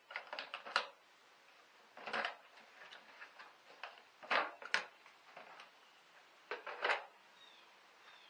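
Irregular sharp plastic clicks and knocks from the cabin filter housing and its cover being unclipped and handled in a Mercedes CLK 350 engine bay, coming in small clusters with short quiet gaps between.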